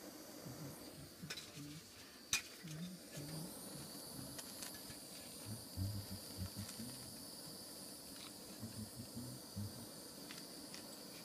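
Propane torch flame hissing steadily while it heats a brass inline valve and copper pipe for soldering, with a sharp click a couple of seconds in.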